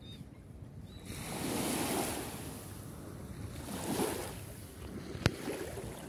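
Small sea waves washing at the shore, with wind on the microphone, swelling twice. A single sharp click near the end.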